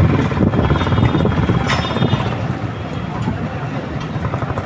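Motorcycle engine running with a fast, even pulse.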